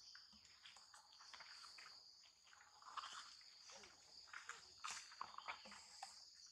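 Faint, steady high-pitched drone of insects, with scattered soft clicks and rustles.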